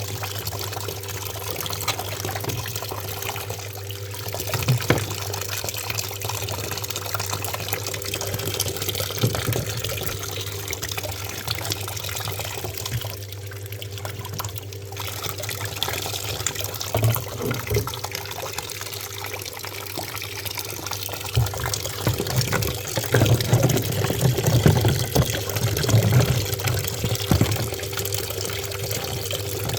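Water running and splashing into the tub of a top-loading washing machine over a steady low hum, with heavier splashing from a little past two-thirds of the way through.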